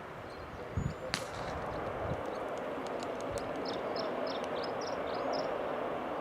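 A jet airliner's engines rising as the plane approaches, the noise building slowly and steadily. There is a sharp click about a second in, and a string of short high chirps in the middle.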